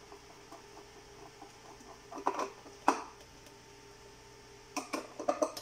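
Scattered small clicks and knocks of hand tools and small metal parts being handled while the battery is fastened back into an SLE 5000 infant ventilator, over a faint steady hum. A cluster of louder clicks comes about two seconds in, one sharp click just after, and another run of clicks near the end.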